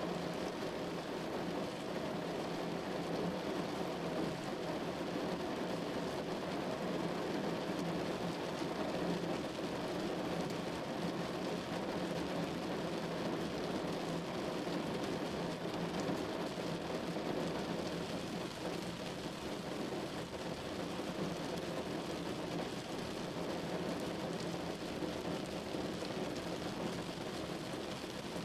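Rain falling steadily on a window, an even hiss with no single drops or thunderclaps standing out.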